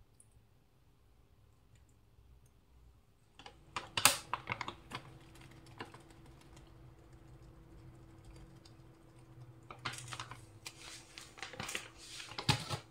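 Kitchen utensils tapping and scraping against a glass mixing bowl while fish pieces are coated and mixed: a burst of quick clicks about four seconds in, then another run of taps and scrapes from about ten seconds.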